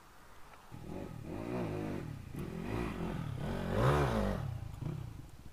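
Crossfire RM250 dirt bike's engine revving as it rides off over dirt, its pitch rising and falling several times with each throttle pull. It is loudest about four seconds in and fades near the end as the bike moves away.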